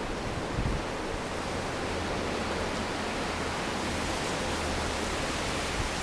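Steady hiss of blizzard wind blowing through the trees and falling snow, with a faint low hum underneath.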